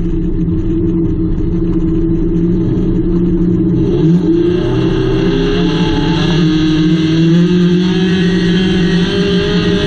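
Engine of a front-wheel-drive hornet-class dirt track car heard from inside the cockpit, running steadily, then rising in pitch about four seconds in as the car accelerates and climbing slowly after that. A steady hiss joins in as it speeds up.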